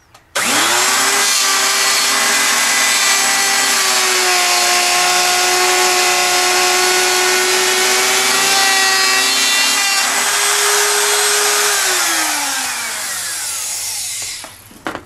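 Handheld electric router switched on, its whine rising quickly to full speed, then cutting a slot in a wooden surfboard rib as it is pushed along the jig's guide. Near the end it is switched off and the whine falls away as the motor winds down, followed by a couple of knocks.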